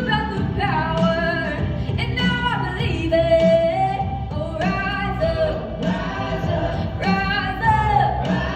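A woman singing a contemporary worship song, accompanied by a live band with drums.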